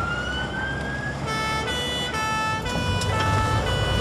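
Fire engine siren heard from inside the cab: a rising wail that switches about a second in to a two-note alternating tone, jumping between high and low a little over twice a second, over the low rumble of the engine.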